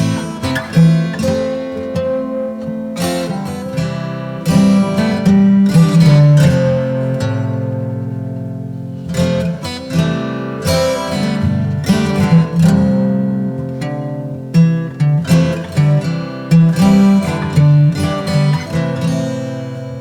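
Music: an acoustic guitar plucking notes and chords.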